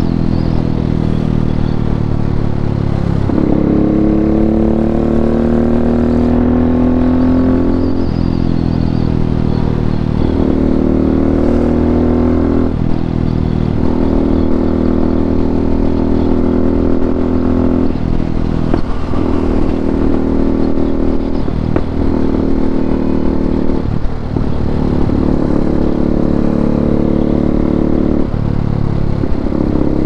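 KTM RC390's single-cylinder engine through a full Akrapovic exhaust, running under load with the throttle changing every few seconds. About three seconds in, its pitch climbs slowly for about five seconds as the bike accelerates.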